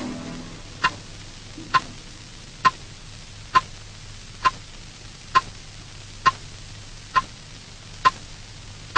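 Slow, even, clock-like ticking: one sharp tick with a short ringing ping a little under every second, over a faint steady hum. A low music chord dies away at the very start.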